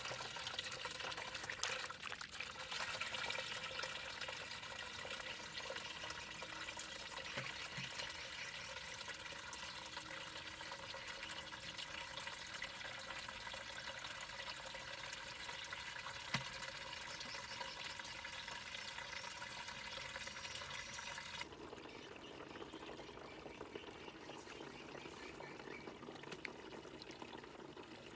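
Running water pouring steadily. About three-quarters of the way through, the sound changes abruptly to a duller, lower rush.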